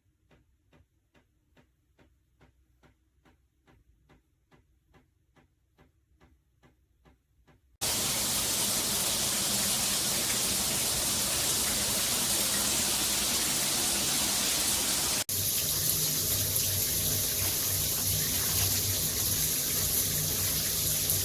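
Faint, regular ticking, about three ticks a second, then water spraying steadily from a shower head, starting suddenly about eight seconds in. Around halfway through the spray the sound changes abruptly, with more low rumble.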